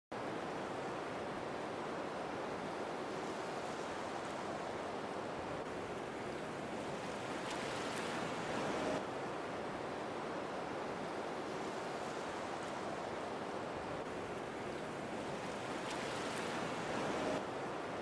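Waterfall: a steady rush of water falling into a pool, swelling slightly about halfway through and again near the end.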